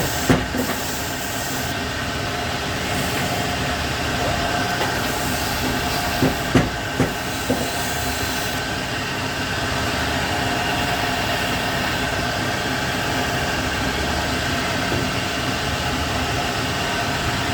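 Lathe running steadily, spinning a Royal Enfield Bullet motor armature while it is polished: a constant machine hum with a hiss of abrasive rubbing. A few short clicks sound about six to seven and a half seconds in.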